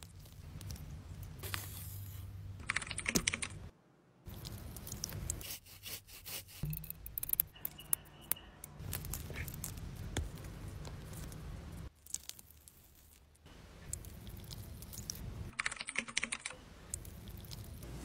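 Close-up food-preparation sounds from a run of short shots: soft clicks and crackles as skins are peeled off steamed beans, and scraping and mashing of bean paste with a silicone spatula. The sound changes abruptly at several edits, over a low steady hum.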